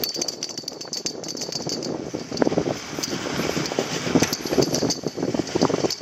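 Tatrapoma surface-lift hanger rattling and scraping unevenly as it is towed up the track.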